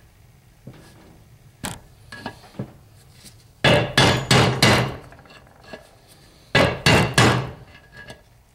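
Hammer blows driving an old oil seal out of an NP208 transfer case housing. A few light taps come first, then two quick runs of four or five hard strikes, one about halfway through and one near the end.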